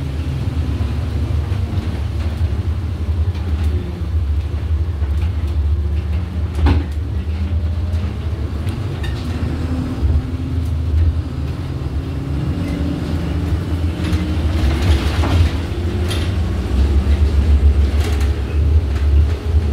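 Inside a moving Iveco Urbanway city bus: a steady low rumble from the engine, drivetrain and road, with the engine note drifting a little in pitch. A few sharp knocks and rattles from the bus's fittings come through now and then.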